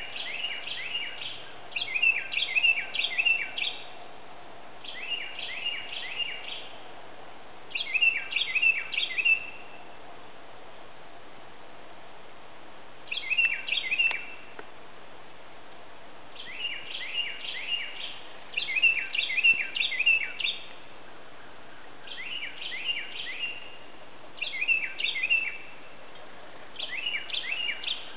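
Northern cardinal singing: about ten phrases of quick, repeated down-slurred whistles, each phrase a second or two long, with pauses of one to a few seconds between phrases.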